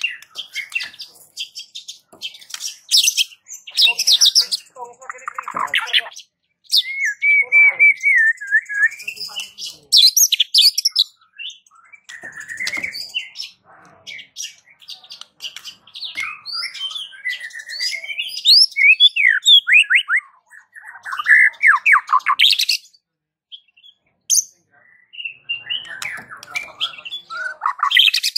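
White-rumped shama singing a long varied song of rapid repeated notes, trills and gliding whistles, with a brief pause about two-thirds of the way through.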